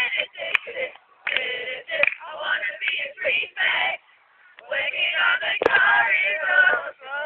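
Voices singing in short, broken phrases, with a brief pause a little after four seconds in.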